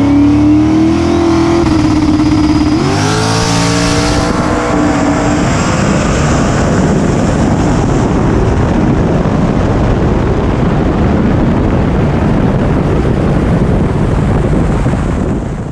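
Turbocharged 5.3-litre LS V8 drag car at full throttle, its engine note climbing in pitch, dropping at a gear change about three seconds in and climbing again. It then turns into a loud, steady rushing noise that cuts off suddenly at the end.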